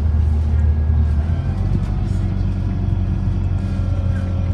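Diesel engine and drivetrain of an Alexander Dennis Enviro400 double-decker bus, converted from hybrid to diesel, heard from inside the cabin while the bus is moving. A steady low drone whose pitch shifts about a second in, with faint higher whines above it.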